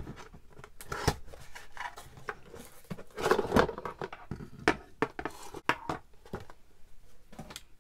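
A cardboard box is handled and opened, and a plastic glue press and bottles are slid out and set down on a tabletop. There are scattered light knocks and clicks, with a longer scraping rustle about three seconds in.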